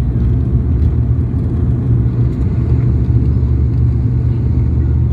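Steady low cabin rumble of a jet airliner taxiing, heard from inside the cabin.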